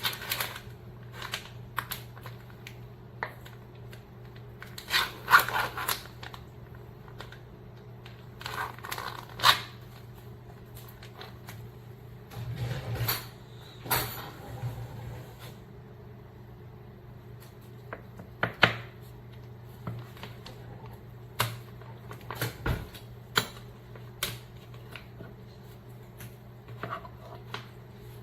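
Scattered clicks, knocks and scraping of objects being handled, with a few longer rustling stretches, over a steady low hum.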